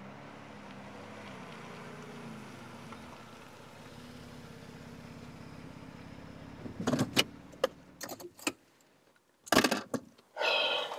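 Nissan sedan's engine running steadily at low revs as the car rolls in, then switched off about seven seconds in, with a string of sharp clicks and a key jangle. Loud short rustling bursts follow near the end.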